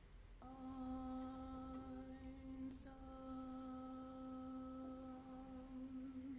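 A single quiet sustained note, steady in pitch, from a live contemporary chamber-music performance, entering about half a second in and held to the end. A brief tick sounds partway through.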